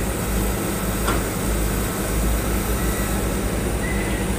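Diesel engines of heavy road-building machinery, a Kobelco SK200 excavator among them, running steadily, with a brief high squeak about a second in.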